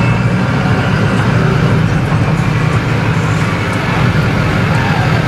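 Steady low rumble of engines and slow-moving traffic, heard from inside a car's cabin.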